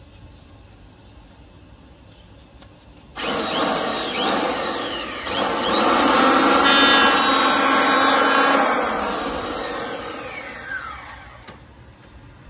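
Bosch PHO 2000 corded electric hand planer switched on about three seconds in, its motor whine rising as it spins up, then louder as the blade cuts along a wooden board. It is switched off near the end, the whine falling as the cutter winds down.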